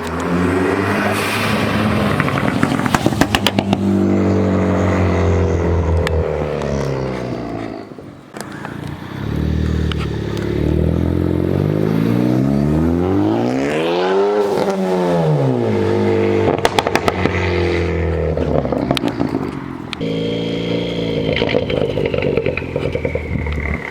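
Tuned car engine running hard, its pitch rising and falling as it accelerates and lets off several times, with crackles of exhaust pops about 3 seconds in and again around 17 seconds in, and a high whine near the end.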